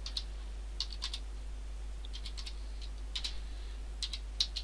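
Computer keyboard being typed on: short, irregular runs of key clicks as a word is spelled out, over a steady low hum.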